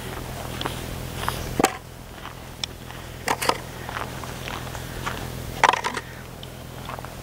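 Footsteps crunching on packed snow: a few irregular crunchy steps, the loudest near the middle and just before the end.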